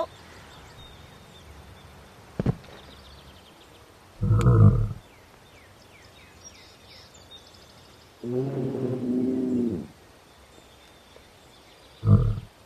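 Monster roars for the cardboard dinosaur: a short deep roar about four seconds in, a longer pitched roar about eight seconds in, and a brief one near the end. A sharp click comes a little before the first roar.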